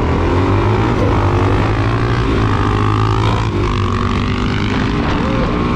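Suzuki DR-Z400SM single-cylinder four-stroke engine running while the bike is ridden, its pitch falling and rising with the throttle.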